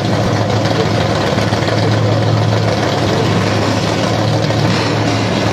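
1963 Pontiac Catalina race car's V8 idling steadily, with no revving.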